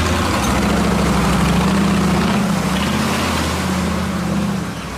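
A motor running steadily: a low hum whose pitch wavers slightly, under a loud, even rushing noise.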